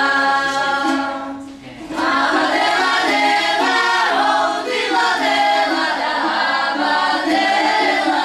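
Voices singing together like a choir, with a short break between phrases about a second and a half in before the singing goes on.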